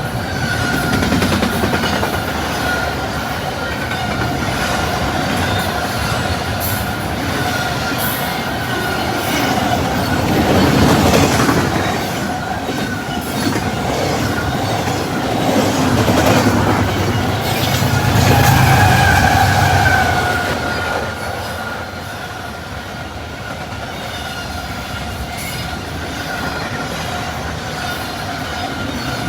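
Intermodal freight train's cars rolling past at about 70 mph, with wheels clattering on the rails and a steady high-pitched squeal from the wheels. The sound swells louder a little after ten seconds in and again past the middle, then eases.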